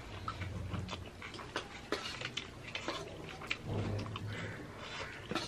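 Close-up eating sounds: chewing and wet mouth smacks, with fingers mixing rice and curry against a brass plate, making many small irregular clicks. Two brief low hums come through, about half a second in and again about four seconds in.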